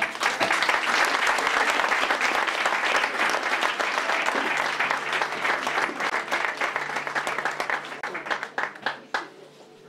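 Audience applauding. The clapping is loud from the start, thins out after about eight seconds and ends with a few last claps.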